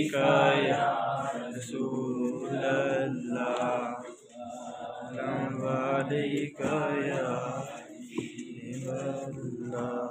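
A man's voice chanting in long, drawn-out melodic phrases with short breaths between them: Islamic religious recitation.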